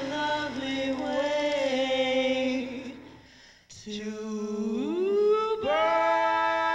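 A man and a woman singing a duet live into handheld microphones, holding long notes. After a brief pause near the middle, a low note slides upward and the voices settle into one long held note.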